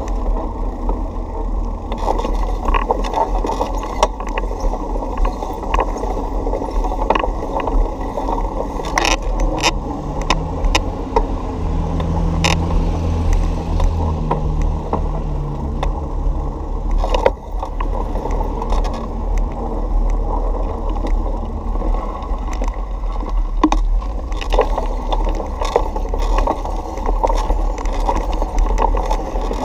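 Bicycle rolling over sidewalk and street pavement: a steady rumble from the tyres with frequent rattles and clicks over bumps. A low drone swells and fades in the middle.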